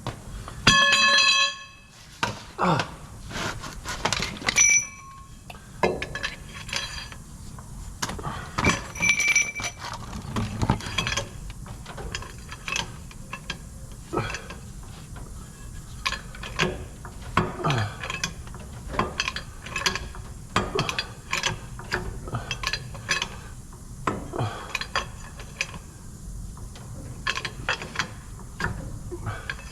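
Metal tools and parts clanking and clinking as they are handled. There is one ringing, bell-like strike about a second in, followed by many short knocks.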